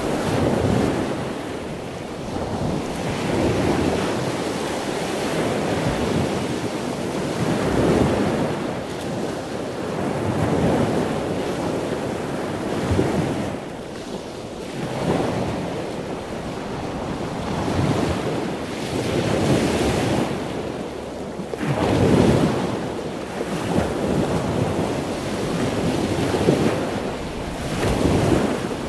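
Ocean surf breaking and washing, a continuous rush of water that swells and eases every two to three seconds.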